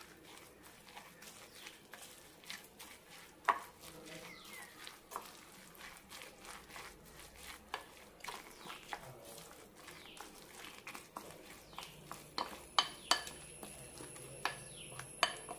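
Wooden spoon stirring a wet mix of vermicelli, egg and chopped onion in a glass bowl: soft squelching scrapes and scattered light clicks of the spoon against the glass, coming more often and louder near the end.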